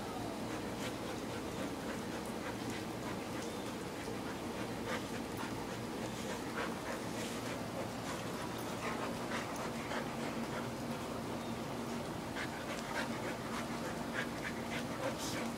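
An Old English Sheepdog and a chocolate Labrador Retriever play-wrestling on carpet: panting and scuffling, with many short scratchy clicks and rustles, over a steady low hum.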